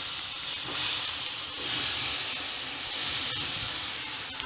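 Pan of spices roasting in hot oil hissing and sizzling as a little pre-boiled water from the kettle goes in to stop them burning; the hiss is steady, easing off toward the end.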